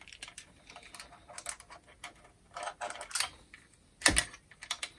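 Small screwdriver clicking and tapping against a plastic wire terminal block as it is worked by hand: a scattered run of light clicks, with a louder clack about four seconds in.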